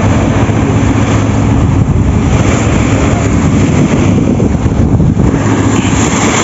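Engine of a large outrigger fishing boat running steadily under way, a steady low hum, with wind buffeting the microphone and water rushing and splashing along the hull and outriggers.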